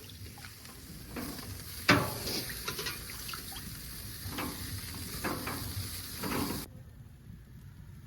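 Jacked-up oysters sizzling on a grill, a steady hiss with scattered clicks and taps. The hiss cuts off suddenly near the end.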